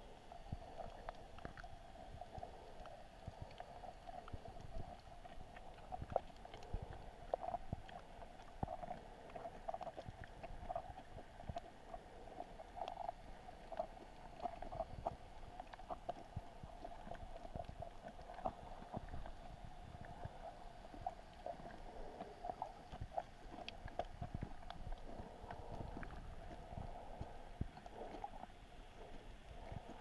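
Muffled underwater ambience picked up by a submerged camera: a steady dull hum and low rumble, with frequent small clicks and knocks throughout.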